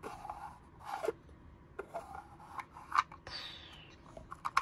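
Small plastic toy being handled: scattered clicks and light rubbing, with a short scrape about three seconds in that falls in pitch.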